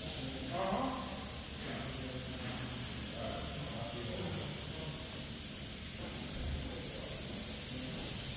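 A steady hiss, with faint voices in the background.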